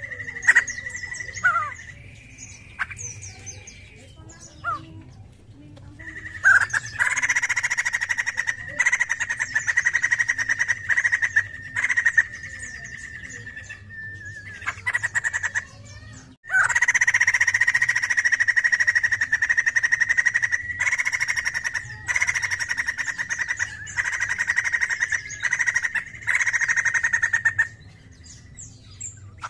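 Poksay jambul (white-crested laughingthrush) singing its loud chattering song: long runs of rapid, evenly repeated notes on a steady high pitch. The runs break off in a few short pauses, with a longer lull about two seconds in.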